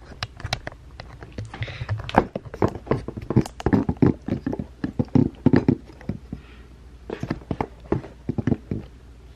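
Rapid, irregular knocks, taps and rubbing from a camera being handled and set in place right at the microphone, stopping near the end.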